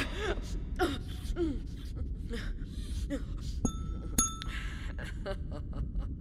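Cartoon sound design: two short falling voice-like sounds from the creature, then two bright glassy rings, as of a glass goblet touched at the rim, about three and a half and four seconds in, each fading over about half a second, over a steady low rumble.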